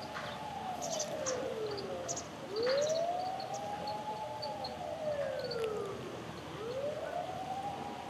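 A siren wailing, its pitch slowly rising, holding and falling again about once every four seconds. Short high bird chirps sound over it now and then.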